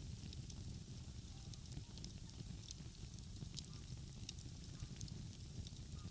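Wood fire crackling, with scattered sharp pops at irregular intervals over a steady low rumble.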